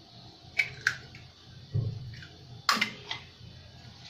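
An egg being broken into a glass mixing bowl of meatball mixture: a few sharp clicks of shell and fingers against the glass, with a duller knock in the middle and the loudest click near the end.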